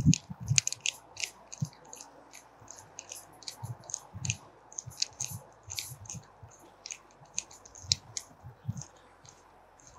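Banding strap clamp being tightened with a hand screwdriver around a pipe: irregular small metallic clicks and scrapes as the screw is turned, with a few dull knocks.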